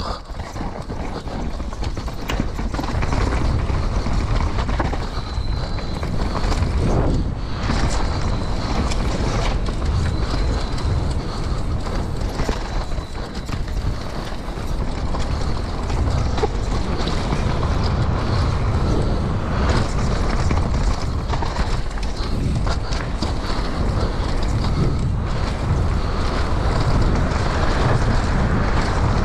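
Wind rushing over an action camera's microphone during a fast downhill mountain-bike run, with the bike's tyres on dirt, rocks and roots and the bike rattling and knocking over the bumps.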